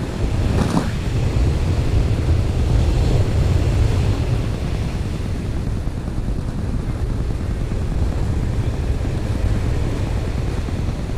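Wind buffeting the microphone with a steady low rumble, over the wash of surf breaking on the beach.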